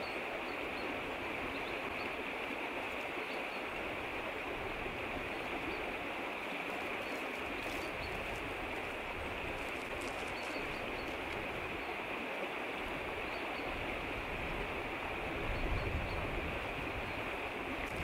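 Steady rushing of running water, an even outdoor hiss with faint high chirps. A low rumble joins in near the end.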